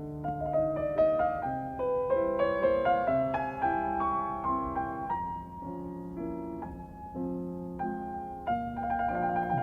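Background music: solo piano playing a gentle melody of single notes over soft chords.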